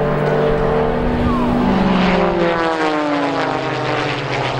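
Propeller aircraft's engine passing low and fast, its pitch sliding down from about two seconds in as it goes by.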